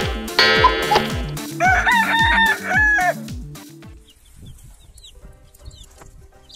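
Upbeat music with a rooster crowing over it, a run of drawn-out calls from about one and a half to three seconds in. The music then fades low, and chicks peep in short, high, falling cheeps.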